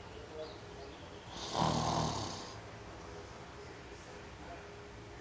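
A person snoring heavily: one loud snore about a second and a half in, lasting about a second, with quiet breathing the rest of the time.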